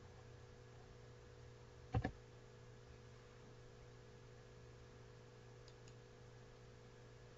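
Computer mouse clicks: a sharp double click, press and release, about two seconds in, then two faint ticks near six seconds. A low steady electrical hum runs underneath.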